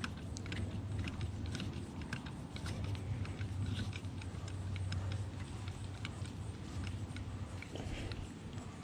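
Light, irregular small metallic ticks and clicks of a spark plug socket as a new spark plug is threaded in by hand, over a low steady hum.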